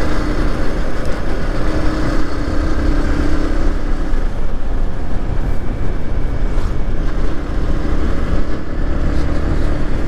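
Yamaha MT-15's single-cylinder engine running steadily at riding speed, under heavy wind rush on the helmet microphone.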